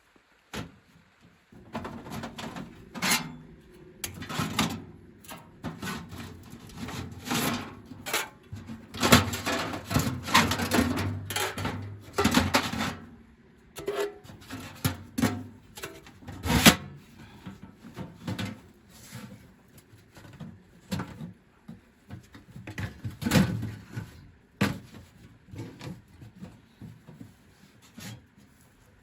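Irregular knocks, scrapes and rubbing of objects being handled, with a few sharper knocks standing out.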